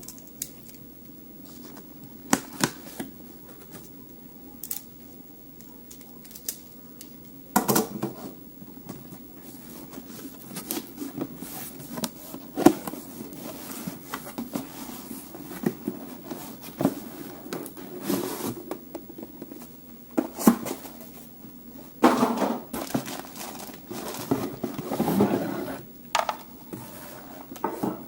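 Unboxing handling noises: cardboard and plastic packaging rustling and tearing, with scattered clicks and knocks as the tool kit's parts are taken out and set down.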